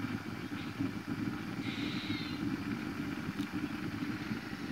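Propane burner firing a copper monotube steam boiler, a steady low rumble while the boiler is still heating up and building pressure. A brief higher whine comes in about two seconds in.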